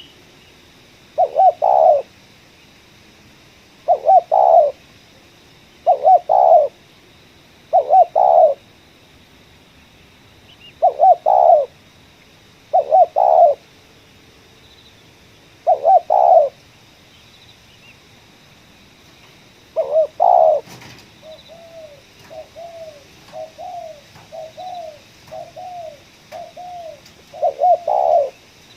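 Spotted dove cooing: loud, short multi-note coo phrases repeated about every two seconds. About two-thirds of the way through they give way to a quicker run of softer single coos, and the loud phrases return near the end.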